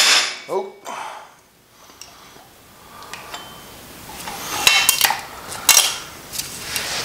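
A dead-blow hammer strikes the cam chest cover of a Harley-Davidson Twin Cam engine to break the gasket seal. After a quiet pause, metal clinks and clatters for a couple of seconds as the cover is worked free and pulled off.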